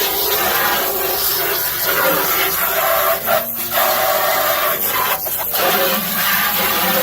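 Water running from a tap and splashing as something is rinsed under it, the stream broken briefly twice.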